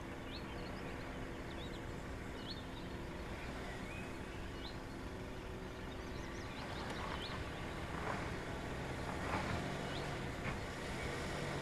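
Mercedes-Benz GLC engine running at low revs as the SUV crawls slowly over rough dirt humps, with a few knocks and crunches from the wheels and suspension in the second half. Birds chirp now and then.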